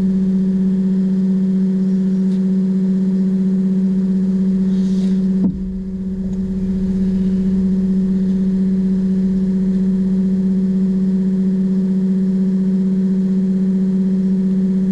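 A 24 V, 86 lb thrust electric trolling motor running at a steady speed with a constant hum, its brushes set at their maximum timing position. About five and a half seconds in there is a click, and the motor dips briefly in level before building back up.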